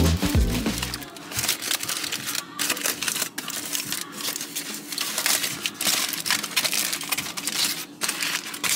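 Aluminium foil crinkling as a hand pulls open a foil packet, a dense run of small crackles with a few brief pauses.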